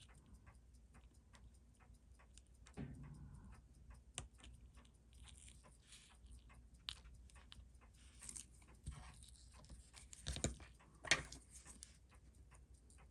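Faint, steady fast ticking, several ticks a second, under irregular small clicks and knocks of handling at a watch-repair bench. The loudest knocks come about ten and eleven seconds in.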